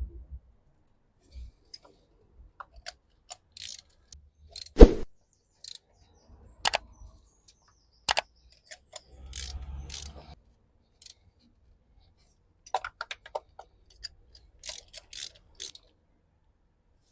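Scattered sharp clicks and metallic clinks of spark plugs, a coil pack and hand tools being handled and set down, with one louder knock about five seconds in.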